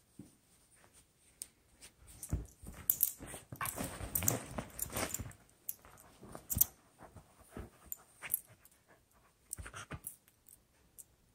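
A beagle clambering across fabric couch cushions and a blanket to a plush toy: soft rustles, thumps and clicks, with a denser stretch of breathy snuffling noise near the middle as it noses the toy.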